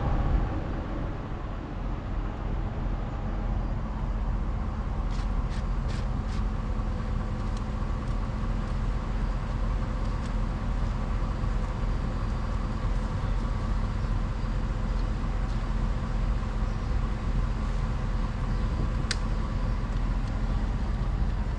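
Truck driving along at a steady pace: a continuous engine hum and road noise.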